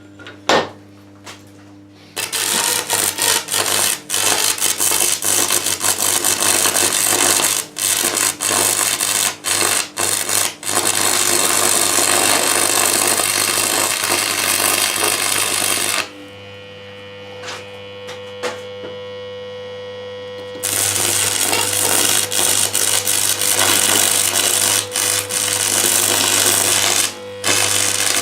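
Electric arc welding on a metal aerial mount: a loud, steady crackle in two long runs, the first starting about two seconds in, with a pause of a few seconds in the middle and a few brief breaks. A steady electrical hum lies underneath throughout.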